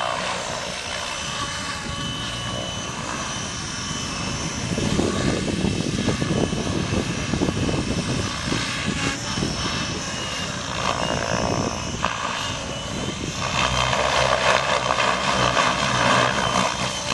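Electric GAUI X7 RC helicopter in flight: a steady high motor and gear whine with rotor blades rushing, swelling loudly about five seconds in and again near the end as the blades load up in manoeuvres.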